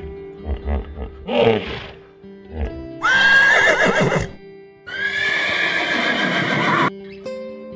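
Two loud animal calls over background music: a high call with a quavering pitch about three seconds in, then a longer, harsher call about five seconds in.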